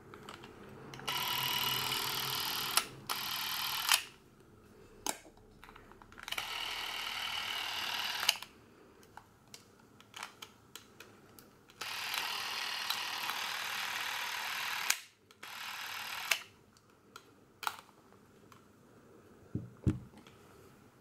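A Porst Reflex ZR 360 Super 8 cine camera's electric motor whirring steadily in several runs of two to three seconds each, as its film drive is run. Sharp clicks of its controls and trigger come in between the runs.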